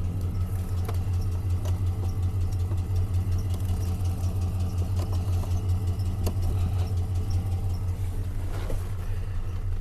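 GMC Sierra Denali pickup's engine idling steadily, with a few faint clicks.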